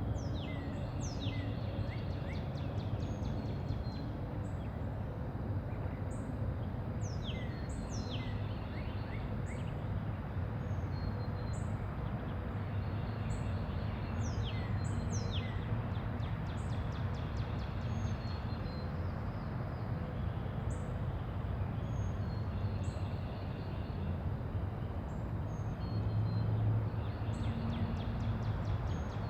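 Quiet neighbourhood ambience: small birds chirping over and over with short falling whistles and quick trills, above a steady low background rumble that swells briefly near the end.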